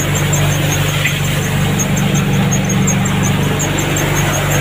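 Tractor-driven multicrop cutter-thresher running steadily at working speed: a continuous machine drone with a low hum and a fast, even ticking above it.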